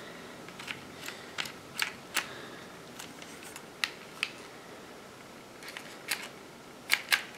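Scattered small clicks and ticks, about a dozen at irregular intervals, as a compact rifle scope is handled and its knobs are turned.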